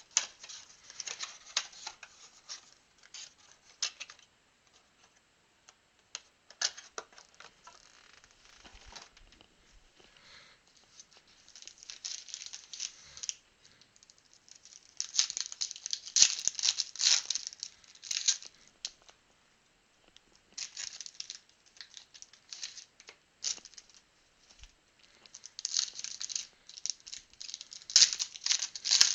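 Plastic trading-card pack wrappers crinkling and tearing open, with cards being handled, in irregular bursts that are loudest about halfway through and again near the end.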